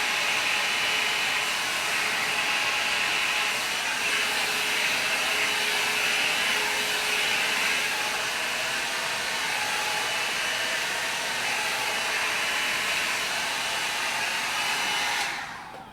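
An 1100-watt hair dryer brush runs steadily, a rush of blown air with a faint motor whine. It cuts off and winds down quickly near the end.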